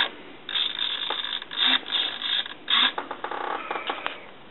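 The Golden Arrow RC buggy's electric steering servo whirring in a few short bursts as it turns the front wheels one way and the other under digital proportional control.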